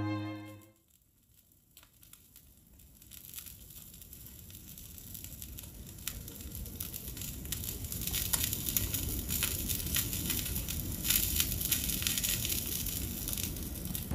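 Steak sizzling on a hot teppanyaki griddle, a fine hiss full of small crackling pops. It rises gradually from near silence to a steady sizzle as the phone zooms in with audio zoom.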